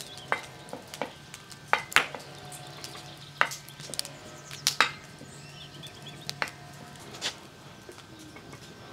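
Wooden spoon knocking and scraping against a large iron wok-shaped pan as a block of butter is pushed around to melt, with a light sizzle underneath. About ten sharp, irregular knocks.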